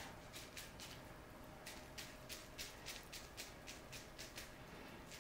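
Faint, quick crinkling ticks of bubble wrap plastic, about four a second, as hands press and smooth it down onto a canvas of wet acrylic paint.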